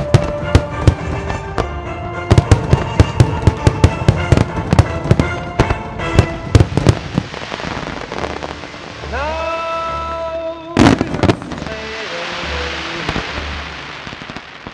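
Fireworks display over music: a rapid run of sharp bangs from bursting shells and comets through the first seven seconds, then a steady crackling hiss under the music, broken by two heavy bangs about eleven seconds in.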